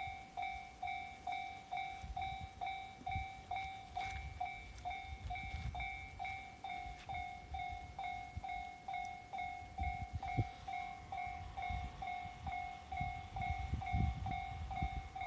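Japanese railway level-crossing warning bell ringing at a steady pace, about two dings a second, signalling that a train is approaching. Irregular low rumbling runs underneath.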